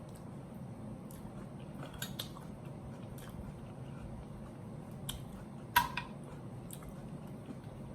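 A person chewing Caesar salad close to the microphone: soft crunching and wet mouth clicks. A sharper click with a brief ring comes a little before six seconds in.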